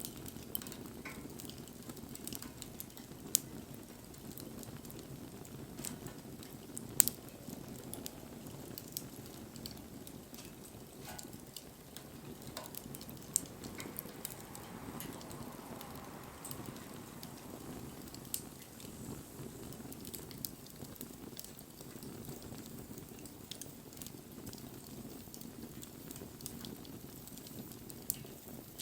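Wood campfire burning, with a steady low rush of flame and scattered sharp crackles and pops. The loudest pops come about three and seven seconds in.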